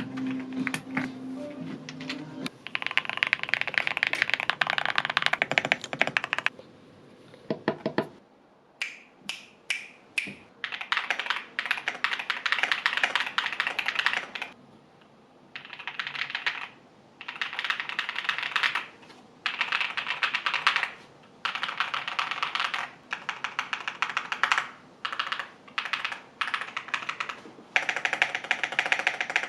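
Typing on a QK75 mechanical keyboard with linear Kailh Ashen switches: fast runs of keystroke clacks, each lasting a second to a few seconds, separated by short pauses.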